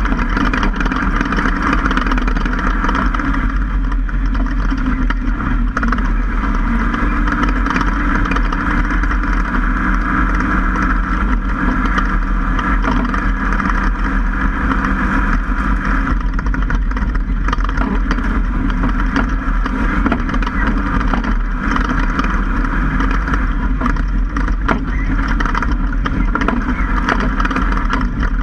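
Ford F-150 prerunner driving at speed on a dirt track, heard from a camera mounted in the right front wheel well: a steady mix of engine, tyre and wind noise with scattered small knocks.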